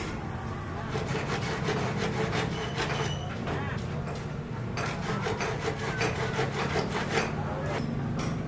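Building-site work: scraping and rubbing with frequent short, sharp knocks, over a low steady hum.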